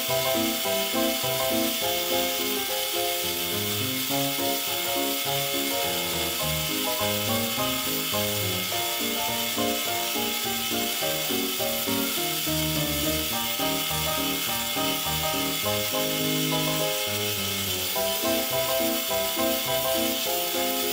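Instrumental background music, a melody of held notes, over the steady hiss of a narrow bench belt sander grinding the steel ratchet.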